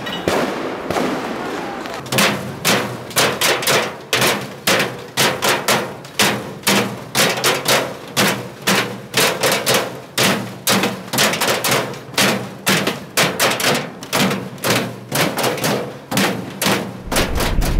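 A long, fast run of sharp bangs, about three a second and fairly even, starting about two seconds in. A low rumble comes in near the end.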